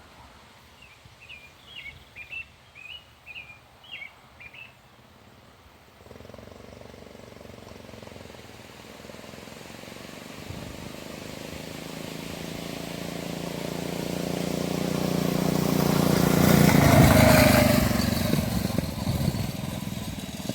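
Birds chirping for the first few seconds, then a 6 hp mini bike engine running, growing steadily louder as it approaches, loudest about three quarters of the way through, then beginning to fade as it passes.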